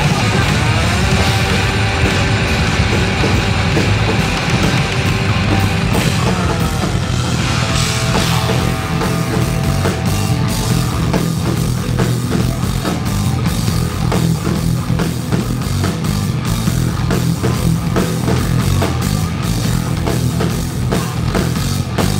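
Rock band playing loud, with electric bass, electric guitar and drum kit.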